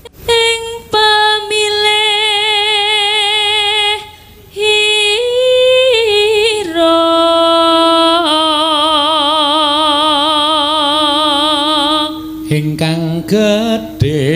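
A Javanese sinden (female gamelan vocalist) singing long held notes with a wide vibrato and little or no accompaniment, stepping down to a lower note that she holds for several seconds in the second half. A lower voice is heard briefly near the end.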